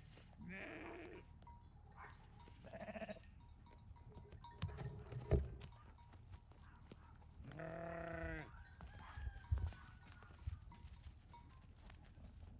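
Sheep bleating close by: three calls, the third, about eight seconds in, the longest. Between the calls come a few short soft knocks.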